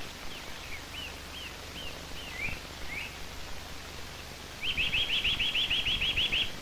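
A small bird calling: short single chirps several times, then near the end a fast trill of about a dozen notes, about seven a second.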